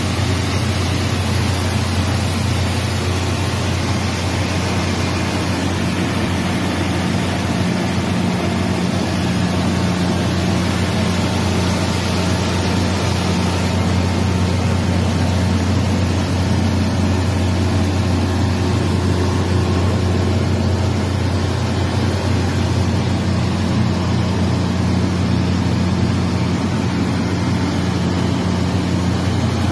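Shin Nong compact rice mill running steadily while milling, its single-phase electric motor humming under a steady hiss of grain streaming through the machine and down the outlet chute.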